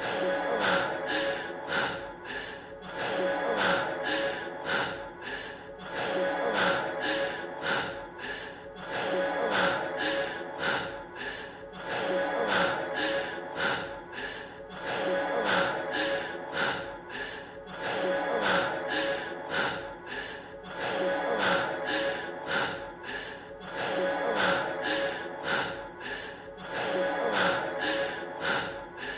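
A man's heavy, gasping breaths over a rap track's steady drum beat. The same few seconds loop over and over, repeating about every three seconds.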